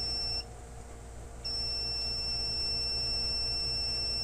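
AKS long-range locator's buzzer sounding a steady high-pitched beep that stops about half a second in and comes back a second later. The unit is slow to stop beeping, which the owner calls not normal and puts down to a faulty internal battery.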